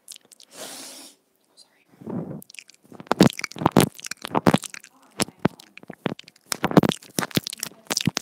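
Teeth nibbling and lips and tongue working on the inline microphone of wired earbuds held at the mouth. After a breathy rush near the start, close crunchy bites and wet mouth clicks come thick and irregular from about three seconds in, several a second.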